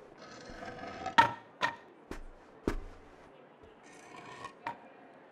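Foley of knocks and footfalls on wood and stone, about five sharp hits. Scraping and rubbing runs between them, with a rasping stretch near the start and a rustle around four seconds in.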